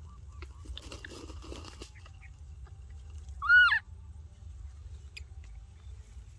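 Baby macaque giving one loud, high call about three and a half seconds in, its pitch rising then falling. A scratchy rustle comes a couple of seconds before it.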